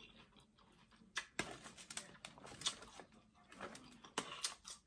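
Close-up chewing and lip-smacking on a mouthful of salad leaves: a quick run of wet clicks and crackles that starts about a second in and dies away near the end.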